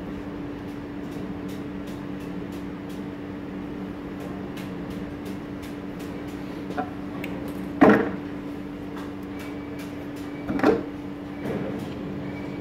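Steady low hum with two held tones, under a few clicks and clattering knocks of probe clips and test leads being handled against a commutator's copper segments; the loudest knock comes about eight seconds in, another a few seconds later.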